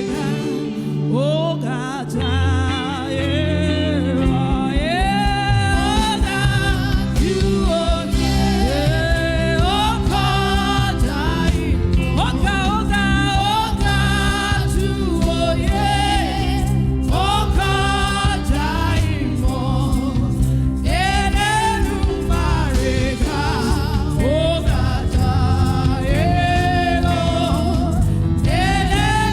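Gospel music: a solo voice sings with sliding, drawn-out notes over backing instruments. The low accompaniment fills in and grows steadier a few seconds in.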